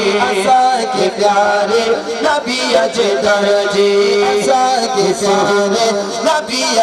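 Men singing a Punjabi devotional naat in praise of the Prophet, with long held, ornamented notes over a steady sustained drone.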